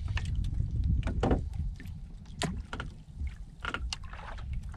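Low steady rumble of wind and water around a small boat, with scattered light knocks and clicks from a handline and squid jig being handled in the hull.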